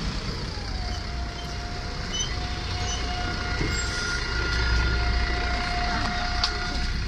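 MAZ 105 articulated city bus running as it stands at the stop, a low engine rumble under a steady whine that drops and settles in pitch about a second in.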